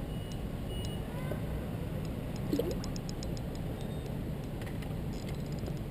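Spinning reel clicking in two short runs of rapid, evenly spaced ticks, one about two seconds in and one near the end, over a steady low background rumble.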